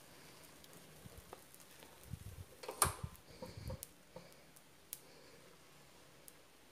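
A spoon and batter bowl being handled while dosa batter is spooned onto a pan: a short run of light knocks with one sharp click about three seconds in, then another small click, over a faint steady hiss.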